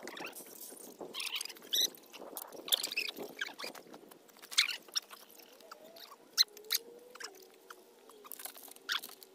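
Young baekgu puppies squeaking and whimpering in short high bursts, scattered over several seconds, with clicks and rustling from the puppies being handled.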